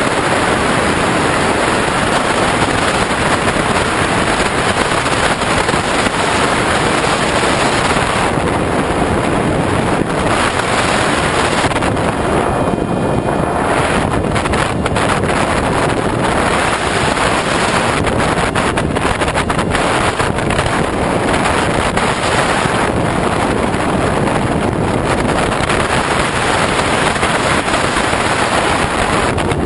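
Steady, loud rush of wind noise on the onboard camera microphone of an RC model plane in flight. The top of the hiss thins out briefly three times as the plane banks.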